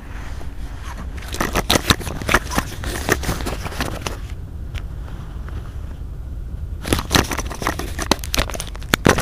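Steady low hum of a Bombardier Regio 2N electric train standing at the platform, broken by two spells of loud crackling: one from about a second in until about four seconds, and another near the end.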